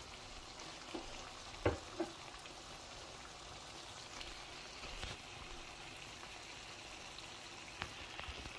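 Pork belly pieces sizzling faintly in a wok, with a few soft clicks scattered through.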